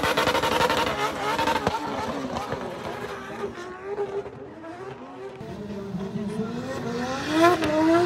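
Drift car engine revving hard while the car slides in tyre smoke, with tyres squealing. It falls back in the middle, then climbs sharply in pitch and is loudest near the end.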